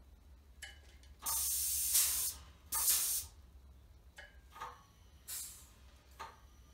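Pneumatic balancer releasing compressed air in loud hissing bursts as its hand control is worked to raise and lower a hanging load of weight plates, with clicks from the control between bursts. Two long bursts come early, then shorter, fainter ones.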